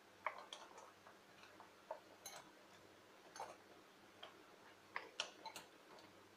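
Faint, irregular wet squishes and clicks of a hand mixing raw mutton pieces into curd and spice paste in a glass bowl.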